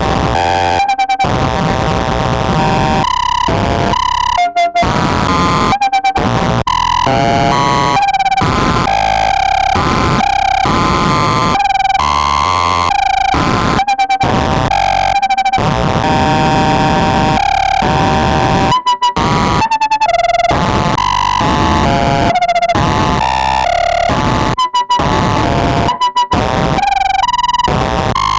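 Korg Volca Modular synthesizer playing harsh electronic noise: a dense, continuous wash with a held tone that keeps jumping between pitches, cut by several brief dropouts.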